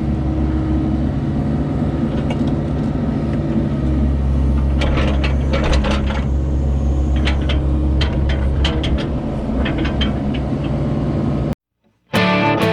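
A heavy machine's engine running steadily, with a low hum that grows a little stronger about four seconds in and a run of metallic clanks and rattles from about five to ten seconds in. The sound cuts off short of the end and guitar music begins.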